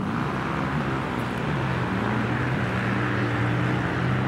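A vehicle engine running hard, its pitch rising briefly at the start and then holding steady, with a rushing hiss over it.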